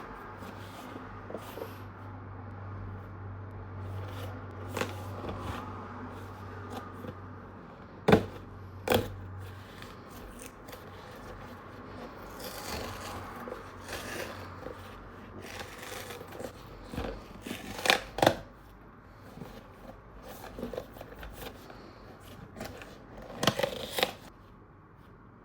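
Packaging being handled and opened by hand: irregular rustling and scraping with several sharp clicks or snaps. A low steady hum underlies the first third and then stops.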